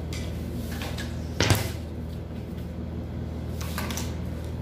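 A single sharp wooden knock about a second and a half in, as a wooden tailor's L-square ruler is set down on the paper-covered table. Softer sliding and brushing noises of the ruler and pattern paper come before and after it, over a steady low hum.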